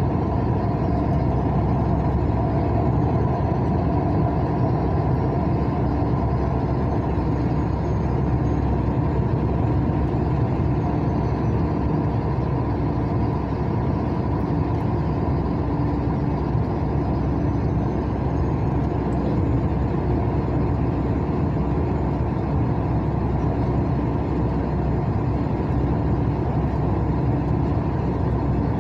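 Steady road noise of a car driving on a concrete highway: tyre rumble and engine hum at an even level, with no change in speed.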